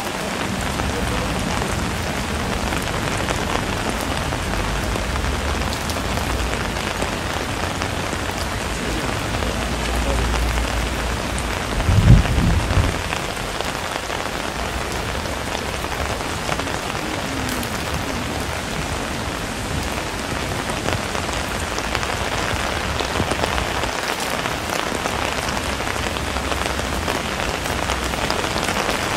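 Steady rain falling, with a low thump about twelve seconds in.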